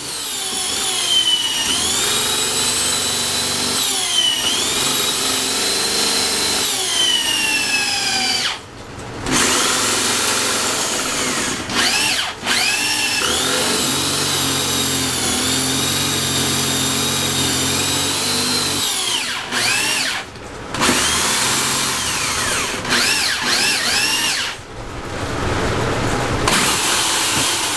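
Electric power tool working a wooden bowl blank. Its motor whines high in long spells, and the pitch dips and recovers as it is loaded. It stops briefly several times.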